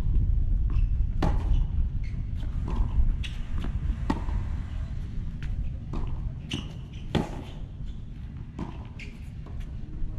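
Tennis ball pops from racket strikes and bounces on a hard court, sharp and spaced about a second or so apart, over a low steady rumble.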